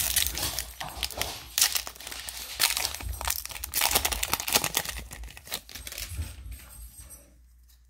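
Crinkling and tearing of a plastic trading-card pack wrapper as it is opened and handled, dense crackles that die away near the end.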